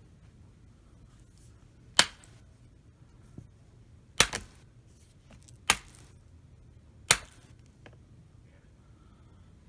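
Knuckles cracking: four sharp pops about a second and a half apart, the second one a quick double pop, with a couple of fainter clicks between.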